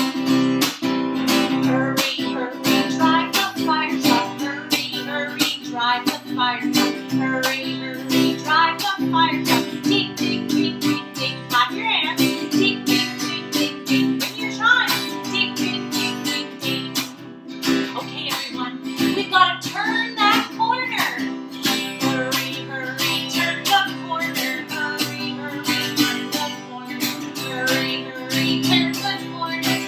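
Strummed acoustic guitar accompanying a woman singing a children's song, including a sung "ding, ding, ding, ding, ding" for a fire bell.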